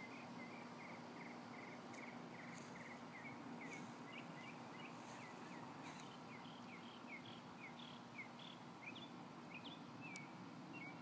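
Faint outdoor yard ambience: short high chirps repeating about two a second over a low steady hum, which drops away near the end.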